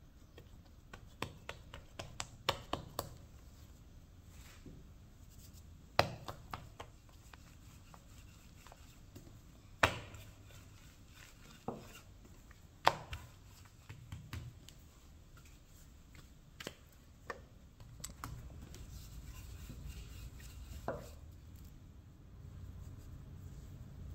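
Wooden rolling pin rolling out dough on a marble countertop: scattered sharp knocks and clacks of the pin against the stone, a few of them loud, with soft rubbing of hands on floured dough between them.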